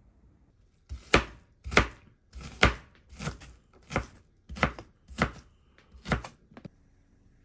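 Kitchen knife chopping on a cutting board: about nine separate strokes at a slow, even pace, starting about a second in and stopping shortly before the end.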